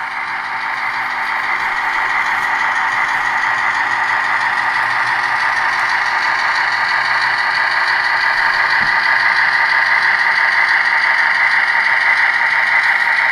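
HO-scale model diesel locomotive running slowly along the track while shoving a boxcar, a steady mechanical running sound that grows louder over the first few seconds as it approaches, then holds.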